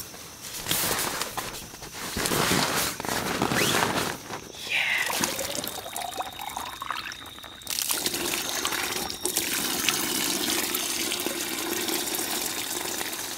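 Irregular rustling and handling noises, then, about eight seconds in, a steady stream of water pouring out of a collapsible water bag.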